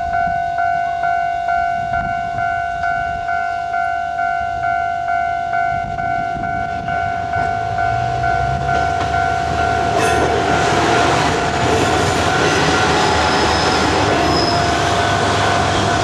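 Level-crossing warning bell ringing steadily at about two strikes a second. A diesel railcar's engine rumble builds under it, and from about ten seconds in the train passes over the crossing, its running noise swelling loud over the bell.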